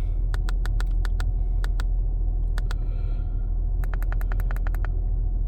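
2005 Acura TL's 3.2-litre V6 idling with a steady low hum, the engine the owner says misfires at idle. Over it come quick runs of small clicks from buttons being pressed on a diagnostic scan tool, a dense run about four seconds in.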